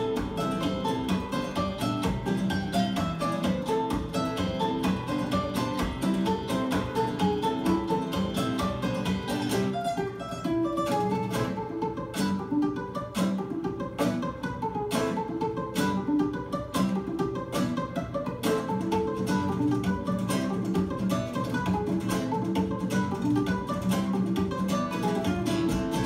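Two acoustic guitars playing a fast flamenco-style instrumental: a picked melody over rapid, percussive strumming. The recording is played back from a FLAC file through B&W floor-standing loudspeakers and picked up in the room. The playing thins briefly about ten seconds in, then builds again.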